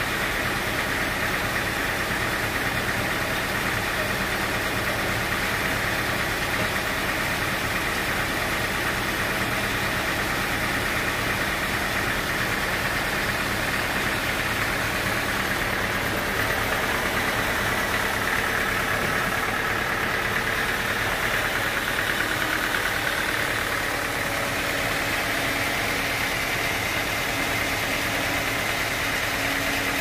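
Band sawmill running steadily, its drive and blade turning over evenly while a large teak log is set on the carriage.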